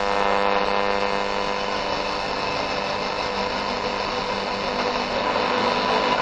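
A Golon radio on the AM band, tuned between stations around 900 kHz, giving a steady buzz over a hiss of static, with no programme heard.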